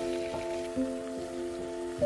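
Background music: a melody of struck notes that ring on, changing every half second or so.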